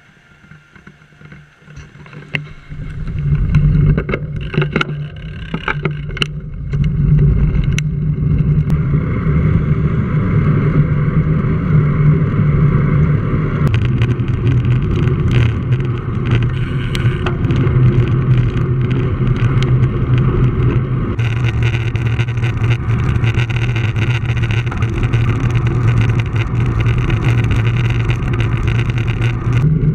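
Wind buffeting and road rumble on a bicycle-mounted action camera while riding, building up about three seconds in as the bike gets moving. A few sharp knocks come in the first several seconds, and the hiss grows brighter about two-thirds of the way through.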